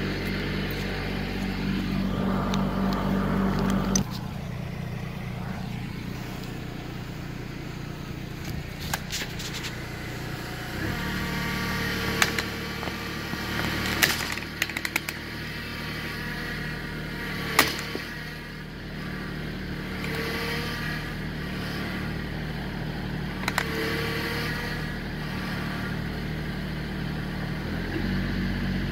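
Kubota L3901 compact tractor's diesel engine running steadily as it works, its note shifting as the engine slows or speeds up at a few points, with a few sharp knocks and clanks in the middle.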